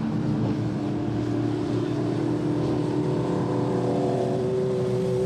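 Lightning Sprint car engine running at steady revs, an even engine note that holds its pitch.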